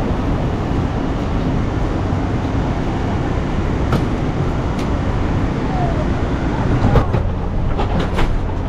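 Steady low rumble and hum inside a Shanghai maglev train carriage standing at the platform, with a few light knocks and clicks.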